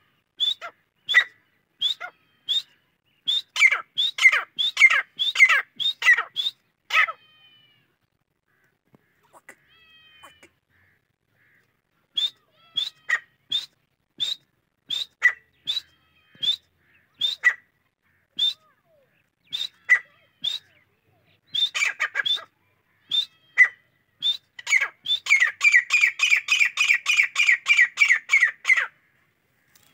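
Grey francolin calling in series of sharp, high notes. A first run quickens over the first seven seconds and stops for a few seconds. Spaced notes then resume and speed up into a fast, louder series of about four notes a second near the end.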